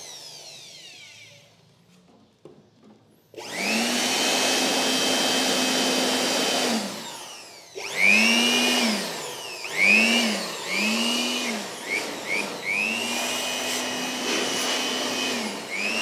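Handheld electric air blower winding down near the start, then switched on and run steadily for about four seconds, then pulsed in a string of short bursts. Its motor whine rises as it spins up and falls as it cuts off each time. It is blowing dust out of a gas fan heater and its filter.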